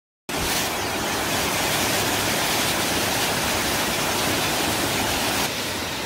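Rushing water of a waterfall, a loud steady rush that starts abruptly and eases slightly near the end.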